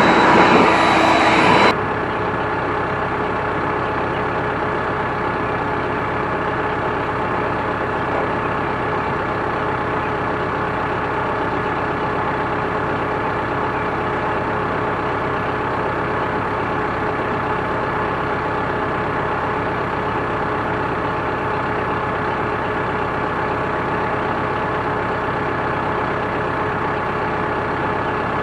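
An engine idling steadily, with a constant hum. A louder rushing sound cuts off abruptly just under two seconds in.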